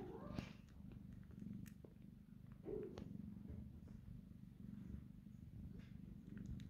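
A cat purring steadily, a low continuous rumble, with a few faint clicks over it.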